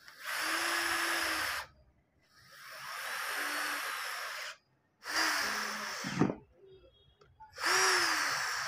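A power driver with a socket runs down the four nuts on a spray pump's inlet-pipe flange, in four separate runs of a second or two each.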